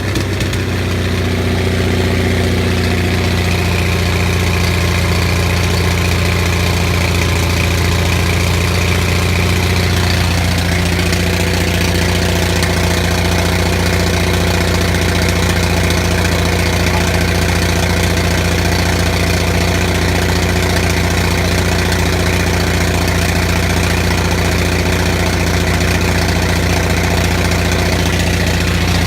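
Onan 6500 gas generator engine, running without a muffler, steady and even just after starting, its fouled spark plugs freshly cleaned.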